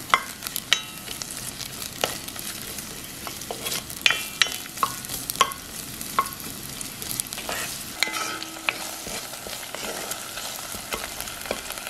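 Sliced garlic and green onion sizzling in olive oil in a pot over low heat, with a wooden spoon stirring and scraping, clicking against the pot.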